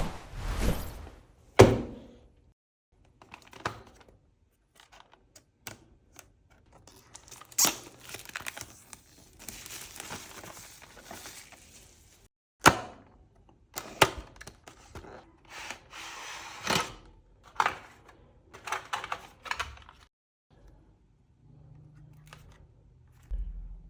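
A power bank and its box and packaging handled and opened by hand: scattered knocks and clicks, with a few seconds of rubbing noise near the middle.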